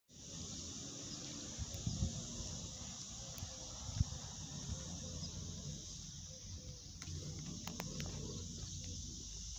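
Steady high-pitched insect drone, summer insects, over a low rumble on the microphone, with a few soft knocks, the loudest about four seconds in.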